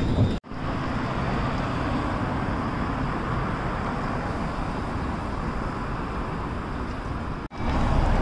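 Steady city street traffic noise from passing cars, with no distinct pitched engine; the sound cuts out for a split second twice, just after the start and near the end.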